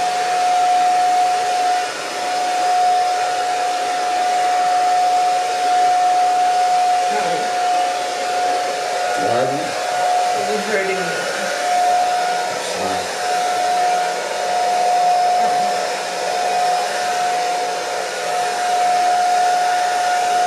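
Handheld hair dryer with a comb attachment running steadily while blow-drying hair: a constant rush of air with a steady whine on top.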